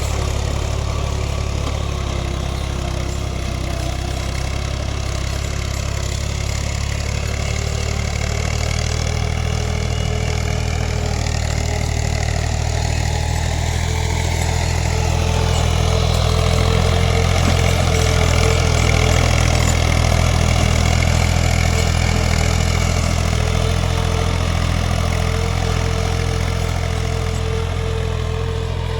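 Ghazi 65 hp tractor's diesel engine running steadily under work. It gets somewhat louder around the middle, then eases off.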